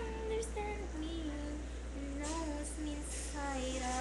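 A girl singing a slow melody alone, holding notes and sliding between pitches, over a steady low hum.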